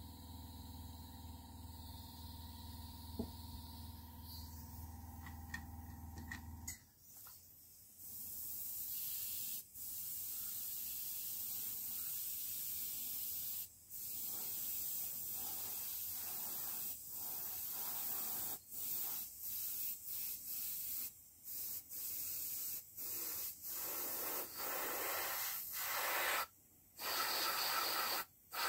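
Airbrush spraying base-coat paint: a hiss of air and paint starts about eight seconds in and goes in repeated passes. It cuts off briefly a dozen or so times as the trigger is released between passes.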